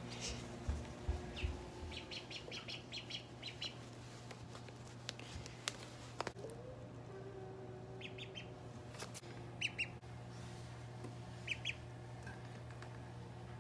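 Call duckling peeping in short, high chirps: a quick run of them a couple of seconds in and a few more near the end. Under them runs a steady low hum, with a few soft handling bumps early on.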